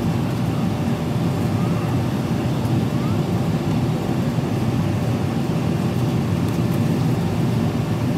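Steady cabin noise of a Boeing 777-300ER in flight: a constant low rumble of engines and rushing air heard through the fuselage.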